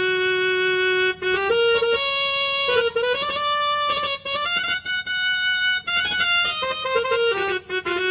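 Casio CTK-2550 electronic keyboard playing a slow single-line melody in one of its sustained built-in voices. Each note is held for a second or so, with short quick runs of notes between them.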